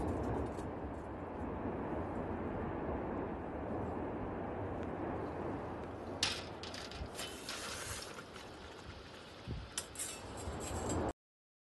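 Steady outdoor rushing noise. From about six seconds in, a metal lava-sampling can on a long pole scrapes and clinks in a quick series, with a few more knocks near the end. The sound then cuts off abruptly.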